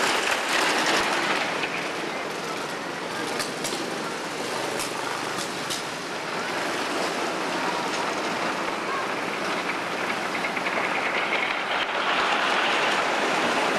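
Wooden roller coaster train running over the track, a steady rumbling noise that is loudest at the start, eases off and builds again in the last couple of seconds as the train comes back near.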